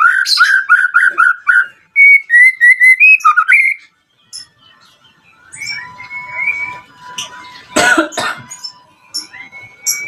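White-rumped shama (murai batu) calling: fast runs of repeated whistled notes, the first lower and the second a little higher, then a brief pause about four seconds in. Softer notes and a held tone follow, broken by a short harsh burst near eight seconds.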